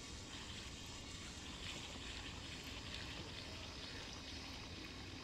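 Spinning reel being cranked steadily as a small hooked fish is reeled in, giving a soft, even whir with faint water lapping.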